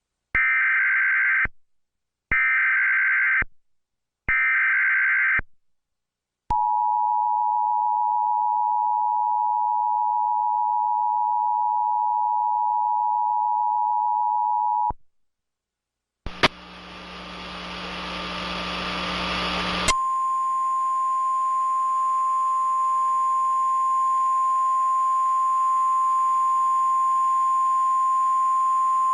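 Emergency Alert System tones: three short bursts of screeching data-header noise, then the steady two-tone attention signal held for about eight seconds. After a short break, a hissing broadcast with a low hum comes in, and a single steady alert tone starts about twenty seconds in and holds to the end.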